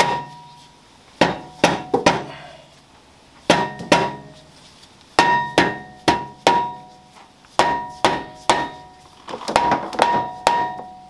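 Plastic mallet repeatedly striking the face of a 2015 Jeep Grand Cherokee's solid rear brake rotor, in quick bursts of two to four blows with short pauses, each blow leaving the rotor ringing briefly. The rotor is seized on the hub and is being knocked loose.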